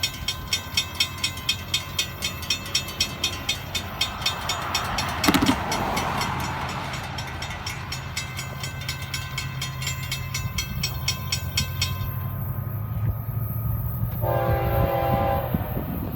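Diesel locomotives of a freight train rumbling as they approach while a bell rings rapidly and evenly for the first twelve seconds or so. About fourteen seconds in the locomotive horn sounds one chord blast lasting about a second and a half.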